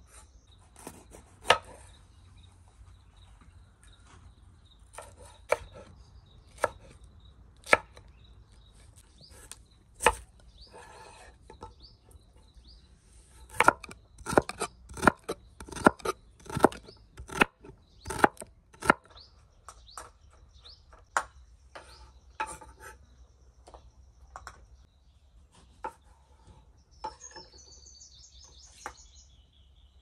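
Kitchen knife chopping carrot on a wooden cutting board: single sharp chops spaced out at first, then a quick run of chops in the middle, thinning out again toward the end.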